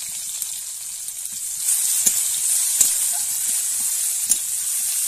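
Chopped onion sizzling in hot oil in a metal kadai, with a metal spatula stirring and knocking sharply against the pan three times.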